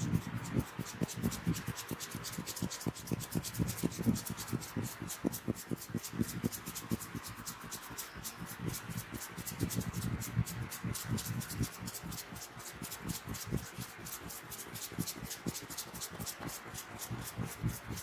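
Fingers rubbing and scratching through oiled hair on a scalp during a head massage, a quick, continuous run of rasping strokes.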